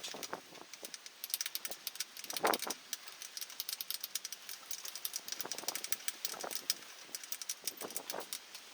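Metal tools and parts clinking and rattling in quick, irregular clicks, with a louder knock about two and a half seconds in.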